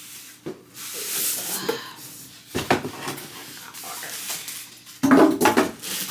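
A boxed Crosley suitcase record player being pulled out of its packaging: packaging rustles and scrapes about a second in, then knocks and bumps, the loudest about five seconds in.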